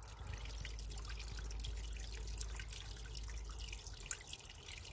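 Water trickling and dripping, a steady fine patter, with a low rumble underneath that stops near the end.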